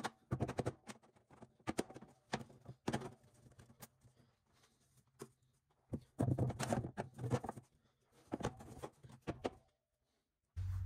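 Rubber mallet tapping luxury vinyl plank flooring to knock the planks into place, a series of irregular knocks, with a plank being handled and set down in between.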